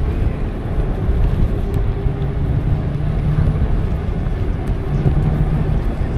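Steady low rumble of wind and rolling noise from a moving e-bike, with a low hum that swells twice.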